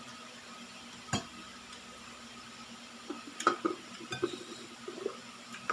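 Eating sounds during a meal: a sharp tap about a second in, then a run of short clicks and clinks of dishes and utensils from about three seconds in.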